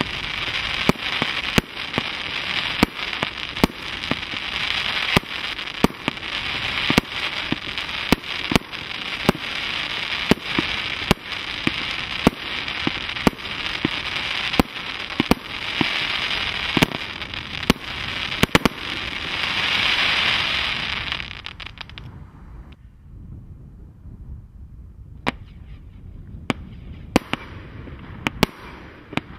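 Mars Pyrotechnics 'The Godfather' consumer firework cakes firing. Sharp shots come about twice a second over a continuous hiss of burning stars. The hiss swells and the first cake finishes about 21 seconds in, and after a quieter pause the next cake starts firing shots near the end.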